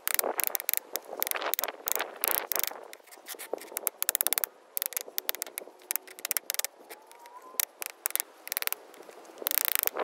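Ingot mold gripped with pliers, scraping and knocking against brick and concrete as it is shifted: a scatter of sharp scrapes, clicks and knocks, with a quick rattling run of clicks about four seconds in and another cluster near the end.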